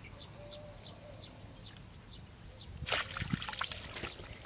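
Pond water splashing as a hooked fish is jerked out on a bamboo pole's line: a sudden splash about three seconds in, followed by scattered small splashes and drips.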